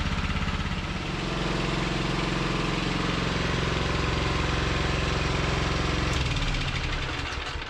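The Clarke Tiger 2900 pressure washer's 6.5 hp single-cylinder petrol engine running steadily after a service. Its beat smooths out about a second in, and the sound fades and drops away right at the end.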